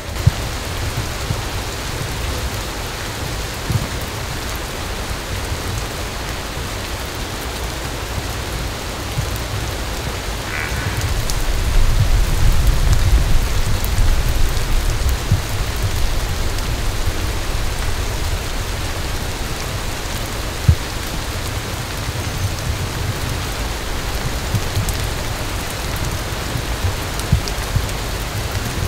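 Steady rain falling, with scattered drop taps and a low rumble; it grows louder for a few seconds about twelve seconds in.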